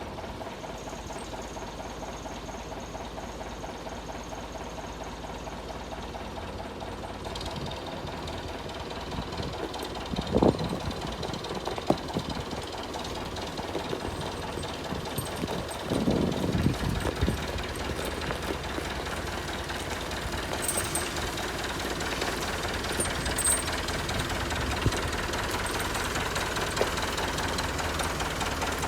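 A tractor engine running steadily, with a few clunks about a third and halfway through.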